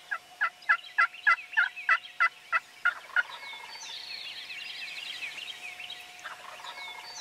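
A turkey calling: a run of about eleven sharp notes, three or four a second, lasting about three seconds. Songbirds chirp and sing throughout.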